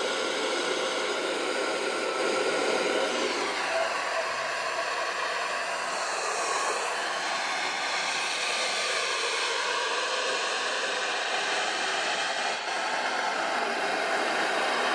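Steady FM static hissing from a portable Full Band Radio Receiver's speaker, tuned to a weak signal around 89.6–89.7 MHz with no station coming through clearly. The hiss changes character about three and a half seconds in.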